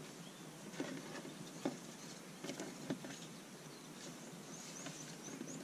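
Faint rustling and scraping of braided synthetic rope being worked by hand and pulled tight into an Acres (Zeppelin) bend, with a few soft clicks in the first three seconds.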